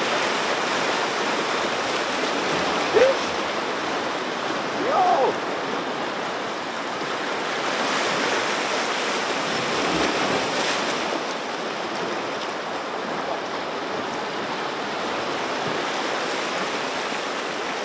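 Small sea waves washing and splashing over shoreline rocks, a steady rush of surf. Two short rising squeaks stand out about three and five seconds in.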